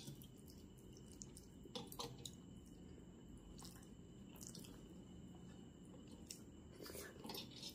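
Faint, wet eating sounds of a person eating soft rice pulao by hand: quiet mouth smacks and squishes while chewing, with a few small clicks around two seconds in and a cluster near the end.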